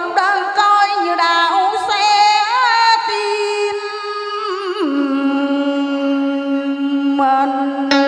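A woman singing a Vietnamese ballad into a microphone, her voice wavering with vibrato. About halfway through she drops to a lower note and holds it long and steady to the end of the phrase.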